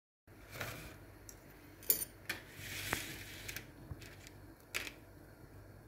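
Faint kitchen handling noises: a few light clicks and knocks and a short soft hiss over a low steady hum, starting after a moment of dead silence.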